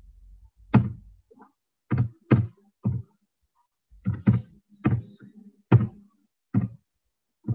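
Computer keyboard keys struck one at a time as a number is typed: about ten separate keystrokes at an uneven pace, each a short knock.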